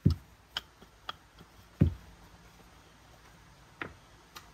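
Bread dough being rolled out by hand on a work surface: three dull thumps spaced about two seconds apart, with a few light clicks and knocks between them.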